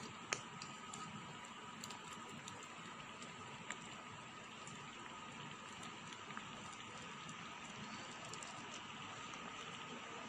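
Milky kheer simmering in a pot: a faint, steady bubbling with scattered small pops. A metal ladle clicks against the pot, most sharply just after the start and again a little under four seconds in.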